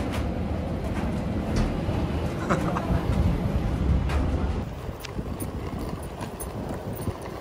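Low, steady rumble of a moving vehicle that drops in level about two thirds of the way through, with a few light clicks.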